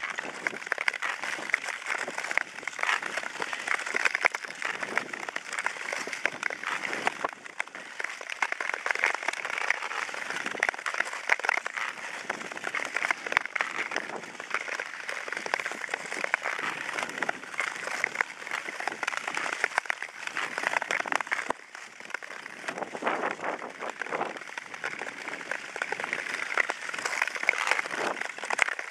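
Ice skate blades scraping and gliding over natural lake ice: a steady gritty hiss with crackling that rises and falls with the skating strokes.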